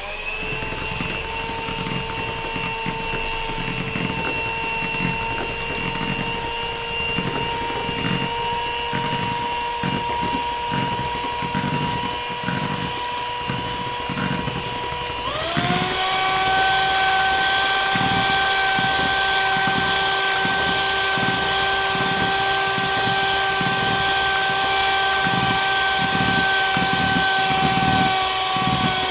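Electric hand mixer with twin wire beaters running steadily in a plastic bowl of cream, its motor whining while the beaters churn and slap the cream into butter. About halfway through it is switched to a faster speed, and the whine jumps up in pitch and gets louder.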